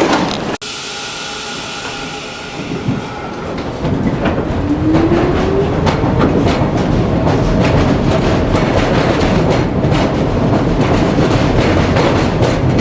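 Subway train on the Flushing Line running on the track, wheels clicking over rail joints, with a high wheel squeal in the first few seconds. The train gets louder about four seconds in, and a short rising whine follows as it picks up speed.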